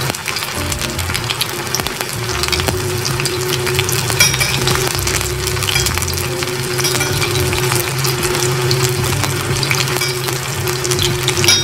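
Breaded chicken nuggets deep-frying in hot oil in a stainless steel pot: a steady crackling sizzle full of small pops, as a fork turns the pieces. A steady low hum runs underneath.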